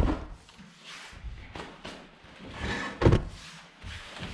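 Two loud thumps about three seconds apart, with smaller knocks and rustling in between.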